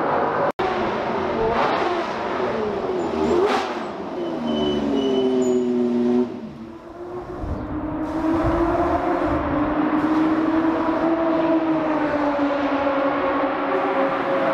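Race cars on a circuit, their engines revving and passing, with the engine pitch falling after each car goes by. The sound cuts out briefly about half a second in. From about halfway through, one engine note holds fairly steady, wavering slowly in pitch.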